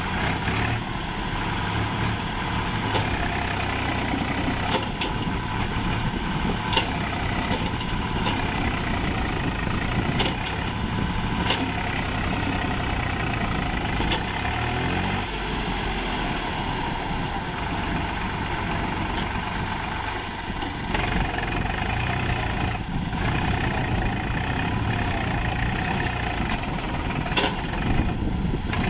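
Swaraj diesel tractor engine running under heavy load as it pulls a fully loaded sand trolley slowly through mud, with occasional sharp clicks.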